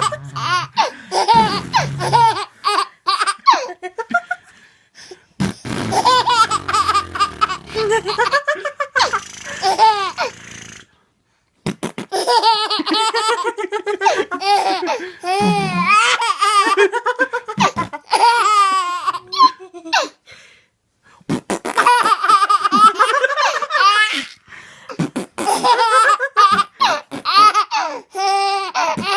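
Baby laughing hard in long runs of belly laughs, breaking off briefly twice.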